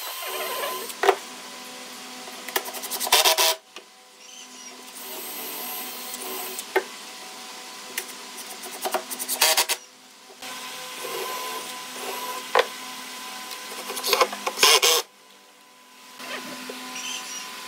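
Cordless drill running in three short bursts into the wooden chair frame, with scattered knocks of wood being handled and a steady hum underneath.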